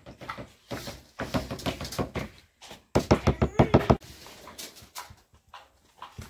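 A small child fussing in a run of short cries, loudest about three seconds in and stopping abruptly a second later.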